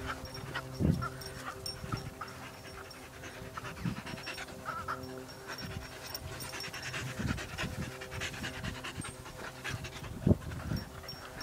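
Dog panting hard and fast while playing, with two dull thumps, about a second in and again near the end. Faint background music with steady tones runs underneath.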